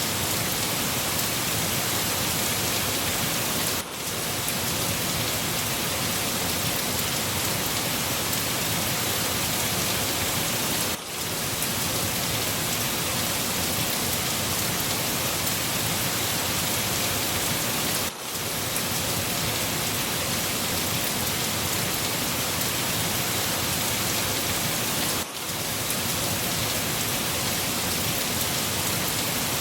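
Steady rain falling, an even hiss of drops across all pitches, broken by a brief dip in level about every seven seconds.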